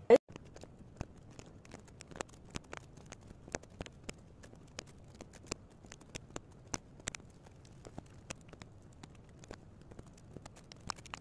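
Hands working washi tape and paper on a notebook cover: a run of quick, irregular clicks and crackles of tape being pulled, torn and pressed down, with one sharp knock at the very start.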